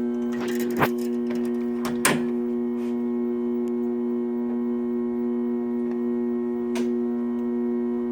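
Wire-spooling machine winding .035" welding wire, running with a steady electric hum, with three sharp clicks: one about a second in, one about two seconds in, and one near the end.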